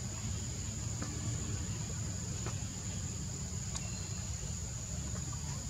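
Insects trilling in one steady high-pitched note over a low steady rumble, with a few faint ticks.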